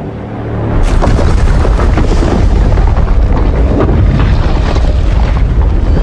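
Fan-made Evolved Godzilla sound effect: a loud, explosion-like rumbling blast full of crackles. It starts out of silence and builds to full strength over about the first second, then holds.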